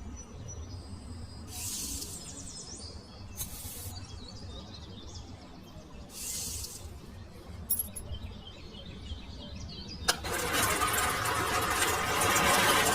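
A low steady rumble with a few short hissing bursts, then about ten seconds in an engine starts with a sharp click and runs loudly.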